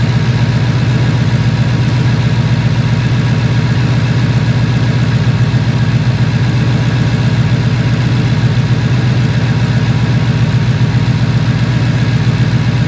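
2015 Ford Mustang's V8 idling steadily, a noisy, slightly uneven running from a misfire on cylinder 8.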